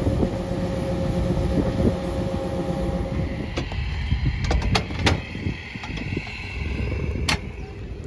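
Combine and tractor running as the combine's unloading auger pours grain into a grain cart: a steady low drone with a hum, which stops about three and a half seconds in. Then a few sharp metallic clinks, a cluster near the middle and one near the end, as a trailer hitch and safety chains are hooked up.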